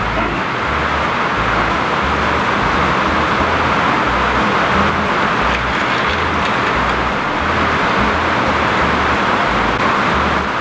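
Heavy rain pouring down steadily, a dense, even hiss with a low rumble underneath.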